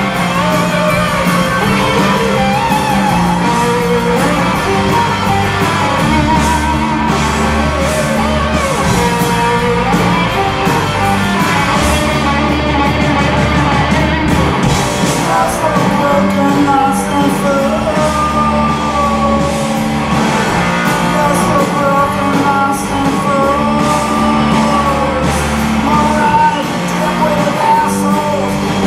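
A rock band playing live: amplified electric guitars and a drum kit with a steady beat, and a male voice singing over them.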